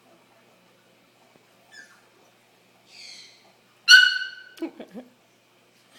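Cries from a teacup Yorkshire terrier and caique parrots. A couple of faint high calls come first. About four seconds in there is a loud, high-pitched held cry, followed quickly by a few short, lower whimpering cries.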